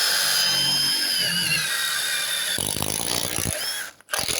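Milwaukee M18 Fuel Gen 3 1/4-inch impact driver turning a 22 mm spade bit into a tree branch. The motor whine dips in pitch under load, turns rougher about three seconds in, and cuts out briefly near the end before starting again.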